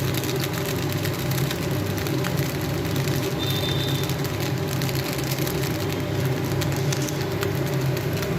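Steady low mechanical hum with a light, continuous crackle of food frying in a pan. A brief faint high tone sounds about three and a half seconds in.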